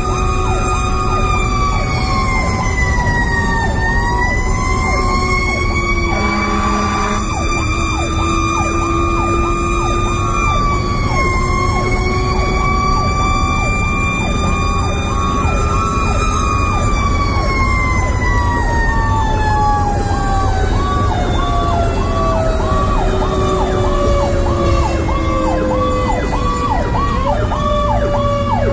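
Fire engine sirens on an emergency run, heard from inside the cab: an electronic siren yelping in rapid, evenly repeating sweeps, together with a second siren in a slow rising and falling wail that winds down over about ten seconds in the second half. The truck's engine rumbles steadily underneath.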